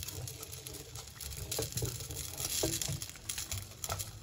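Boiled pasta shells scraped with a wooden spoon out of a metal colander, dropping into a pot in a soft, irregular patter with a few light knocks of spoon against colander and pot.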